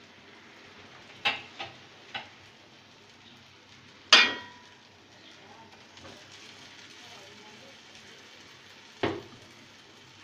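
Utensils knocking against an aluminium cooking pot while masala is stirred and fried potatoes are tipped in: a few light taps in the first two seconds, a louder ringing clank about four seconds in, and one more knock near the end, over a faint sizzle of frying masala.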